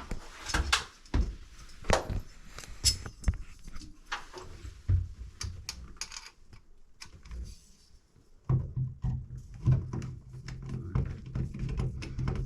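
Scattered knocks and light clinks of a bathroom light fixture and hand tools being handled. About two-thirds of the way in, a low steady hum starts under the knocks.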